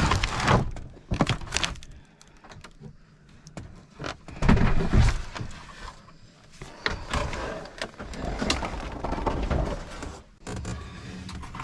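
Irregular knocks, thumps and clatter from someone moving about inside a wrecked sailboat's cabin, with a louder thud and rumble about halfway through.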